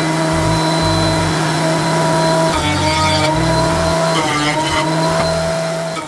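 Benchtop thickness planer running and planing rough lumber: a steady motor whine over the cutterhead's rushing noise. Its pitch sags briefly a couple of times around the middle as boards pass through under load.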